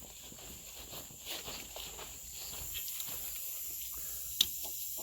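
Small clicks and handling noises of hands and tools working at a truck door's lock, with one sharp click near the end, over a steady high hiss.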